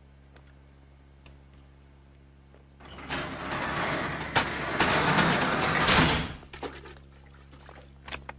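Corrugated metal roller shutter rattling as it is pushed up by hand, starting about three seconds in and lasting about three and a half seconds. There is a sharp knock partway through, and the shutter is loudest just before it cuts off.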